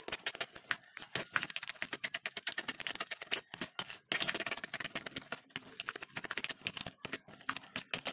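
A wooden spoon stirring a thick cream in a clay bowl, with rapid, irregular clicking and scraping of the spoon against the bowl.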